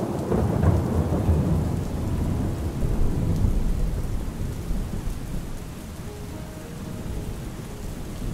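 Steady rain with a long roll of thunder rumbling through the first few seconds and dying away, leaving the rain alone.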